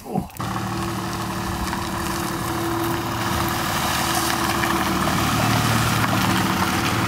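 Engine of a silver BMW 5 Series Touring estate running at low revs as the car rolls slowly forward, a steady hum that grows gradually louder as it comes closer.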